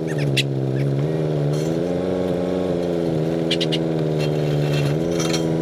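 Heavy-equipment diesel engine running at a steady speed, its pitch sagging briefly about a second in and again near the end as it takes load. A few short high clicks sound over it.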